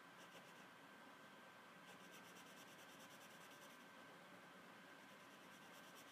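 Faint scratching of a felt-tip marker colouring on paper, in runs of quick back-and-forth strokes, the longest from about two seconds in to four. A faint steady electronic hum sits underneath.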